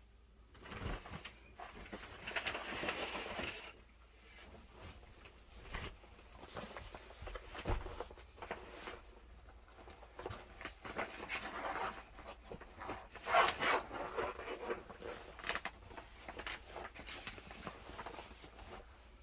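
Rustling and rubbing handling noises in bursts, with a couple of light knocks.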